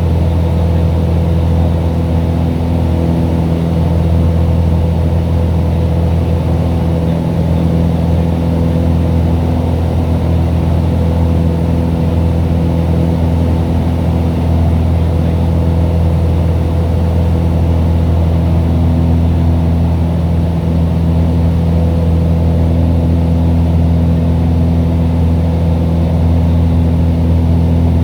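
Cessna 182's single piston engine and propeller droning steadily, heard from inside the cabin, a low, even hum with no change in pitch.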